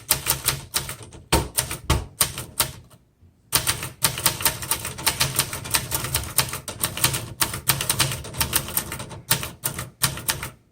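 A 1972 Webster XL-747 portable manual typewriter being typed on quickly: a fast run of key strikes, with a short pause about three seconds in. It is typed faster than this machine keeps up with, so it skips spaces on the line.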